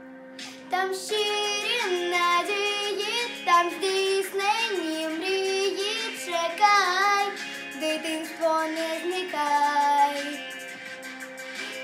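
A young girl singing a song solo over an instrumental backing track. Her voice comes in about a second in, after a short gap.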